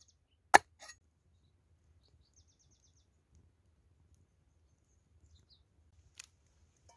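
A kitchen knife chops once through galangal root onto a wooden chopping block about half a second in, with a lighter tap just after. Then it goes mostly quiet, with faint high bird chirps in a quick run around the middle and a single click near the end.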